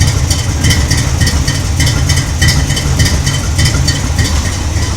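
Chevy 350 small-block V8 with a Stage 2 cam and dual Flowmaster mufflers idling, with a steady exhaust rumble that pulses about twice a second.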